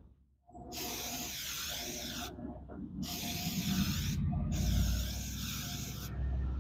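Aerosol can of gloss automotive enamel spray paint hissing in three bursts of a second or more each, with short gaps between, as a base coat goes onto steel throwing-knife blades. A low rumble sits under the last two bursts.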